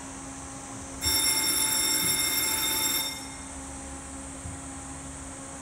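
Cable car station departure bell ringing steadily for about two seconds, starting about a second in, over a steady low hum.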